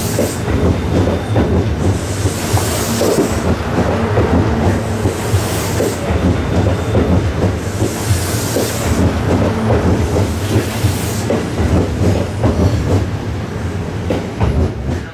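Kintetsu limited express electric train passing close by: wheels clattering over rail joints over a steady rumble, with a high hiss swelling every two to three seconds. The sound drops away near the end as the last car goes by.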